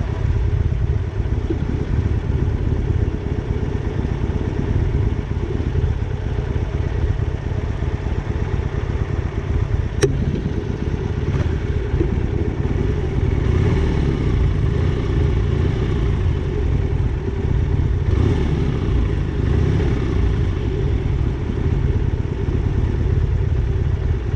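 Motorcycle engine running while riding, a steady low rumble, with one sharp click about ten seconds in.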